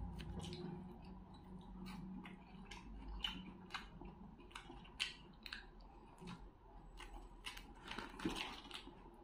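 Faint, irregular crackles and clicks of crisp fried fish skin and fins being torn apart by fingers, sharpest about five seconds in and again near the end.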